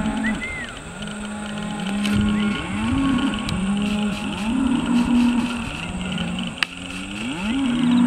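A herd of cattle mooing, several animals calling over one another in low, drawn-out calls. A single sharp click comes about six and a half seconds in.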